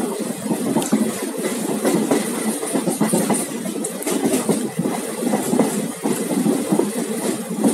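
Indian Railways passenger coach running at speed, its wheels rumbling on the rails with a steady run of clicks and clatters over the rail joints, heard from the open doorway.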